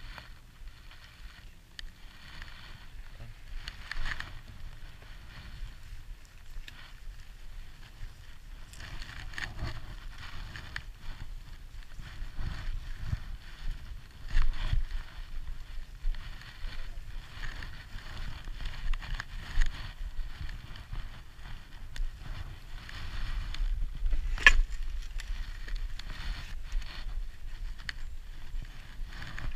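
Motorcycle engines running in the background, with rustling and occasional knocks close to the helmet camera; the sharpest knock comes about 24 seconds in.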